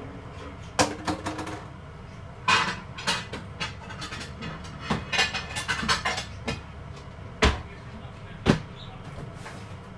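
Kitchenware being handled: irregular knocks and clatters in small clusters, with two loud single knocks late on, over a low steady hum.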